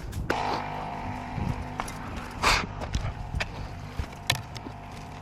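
Siding installation work: scattered sharp knocks and clicks, with a short hissing burst about two and a half seconds in, over a faint steady hum.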